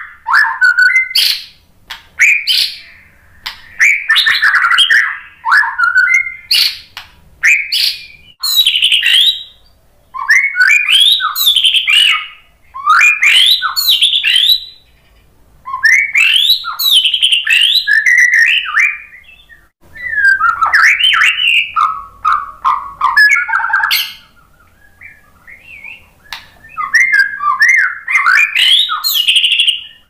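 Male white-rumped shama singing loudly in a stream of varied phrases: fast whistled glides, warbles and sharp clicks. Each phrase lasts one to three seconds, with short pauses between them.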